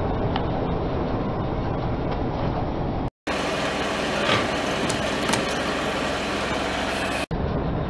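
Car running as its tyre rolls slowly over bell peppers, then, after a brief dropout about three seconds in, over small drink cartons, with two short cracks as the cartons burst and spill.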